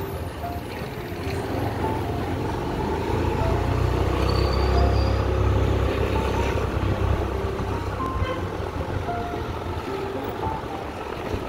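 Background music with a melody of short notes over the low rumble of a motorbike riding through city traffic; the rumble swells for a few seconds mid-way.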